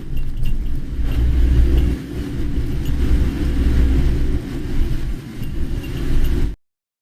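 A car driving, its engine and tyres making a steady low rumble, which cuts off abruptly near the end.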